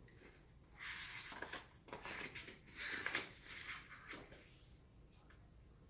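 Soft rustling of paper pages being handled and turned in a picture book, in a few short bursts.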